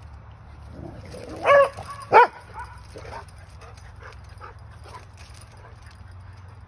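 A dog giving two high-pitched yelping barks less than a second apart, excited by rabbits it cannot reach through the fence.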